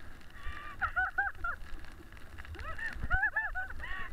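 A high-pitched voice laughing in three quick runs of short rising-and-falling notes, over the low rumble of a toboggan sliding on packed snow with a few bumps.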